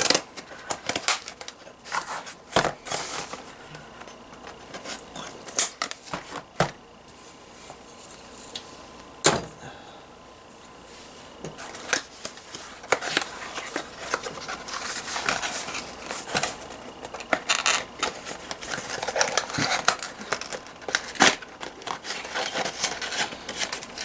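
Hands working at stiff plastic product packaging that is hard to open: scattered sharp clicks, snaps and knocks, with stretches of crinkling and rustling in the second half.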